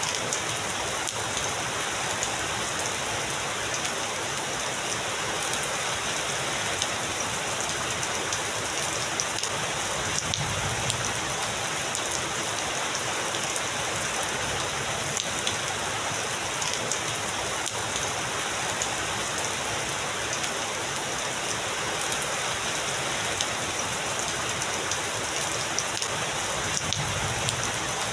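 Heavy rain falling steadily on surfaces, a dense even hiss dotted with sharp individual drop hits. A low rumble of distant thunder swells briefly twice, about ten seconds in and near the end.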